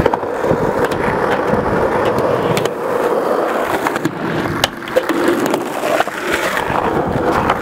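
Skateboard wheels rolling over asphalt and concrete park surfaces in a steady, gritty rumble, broken by a few sharp clacks from about the middle onward.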